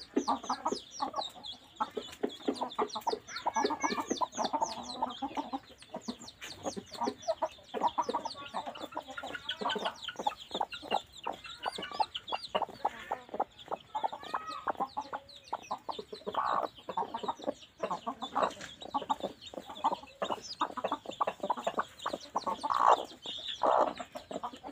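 Chickens clucking continuously in short, repeated calls, with a rapid stream of high, thin peeps from chicks under the sitting hens.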